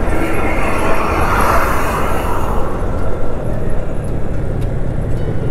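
Steady road and engine noise of a vehicle travelling along a highway. A broad rush of noise swells and fades over the first three seconds.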